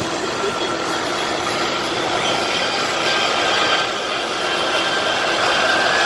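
Jet engine noise from a Boeing C-17 Globemaster III's four turbofans as it taxis: a steady rush with a high whine, slowly getting louder.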